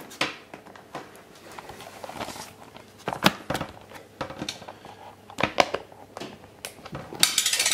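Scattered clicks and light knocks of a MacBook being handled as its removable battery is fitted back into the battery bay, with a short scraping rustle near the end.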